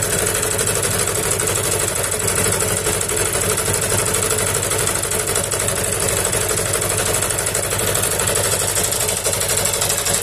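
Small carburetted petrol engine of a homemade generator running at a steady speed, belt-driving an induction motor that serves as the alternator, under an electrical load of a 1 kW heater and a 100 W lamp.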